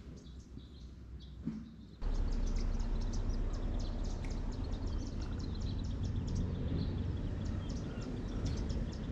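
Outdoor ambience with many small birds chirping in quick, short high notes over a low steady rumble. The whole sound jumps louder about two seconds in.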